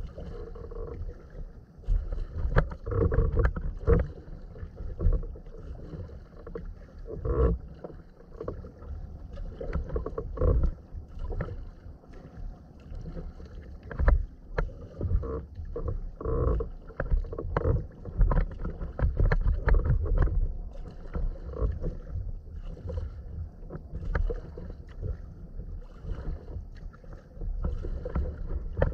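Sea kayak being paddled through choppy water: irregular paddle splashes and water sloshing against the hull.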